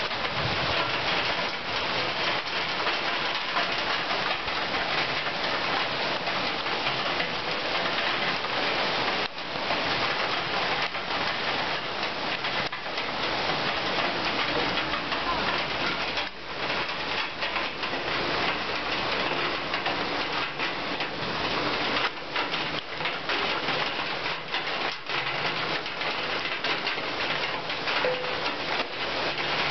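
Summer rain falling steadily: an even hiss that briefly drops off twice, about 9 and 16 seconds in.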